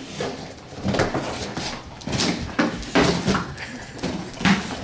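Dog ripping and chewing at a thick empty cardboard box: irregular scraping and tearing of cardboard.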